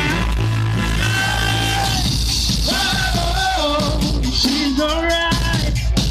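Male vocal group singing live into microphones over a backing track with a heavy, steady bass, played loud through a PA.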